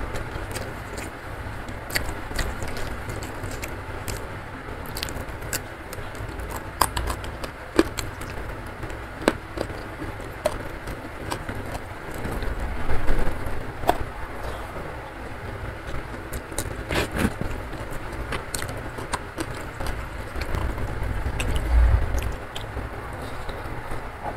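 Heavy rain pouring steadily, with two swells of low rumble, one about halfway through and one near the end. Scattered short clicks and smacks of eating by hand run over it: fingers mixing rice and sambal, and chewing.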